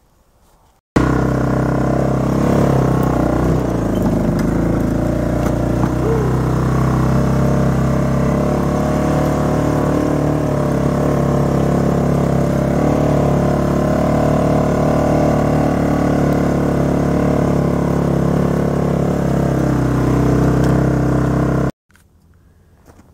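ATV engine running steadily under load, loud and close to the microphone, as it climbs uphill carrying a heavy load. The sound cuts in about a second in and cuts off abruptly just before the end.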